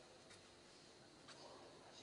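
Near silence: room tone, with two faint ticks, one shortly after the start and one about a second in.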